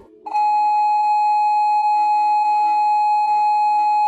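Steady electronic test tone of the kind played with colour-bar test patterns, held at one pitch with fainter lower tones beneath it. It starts about a quarter second in.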